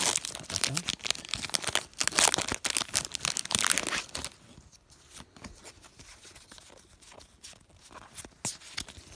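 Foil Pokémon booster pack wrapper being torn open and crinkled for about four seconds. Then quieter, scattered light clicks and rustles as the trading cards are handled and slid through the stack.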